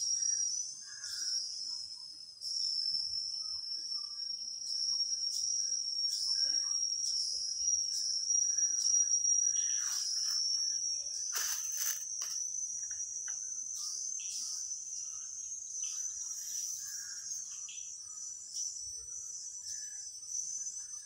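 Crickets trilling in a steady high-pitched drone, with faint rustles and a few soft clicks about halfway through.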